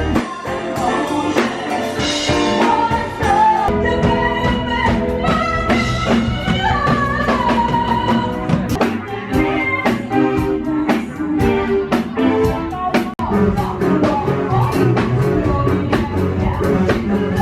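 Rock-style music with a lead singer over guitar and drum kit.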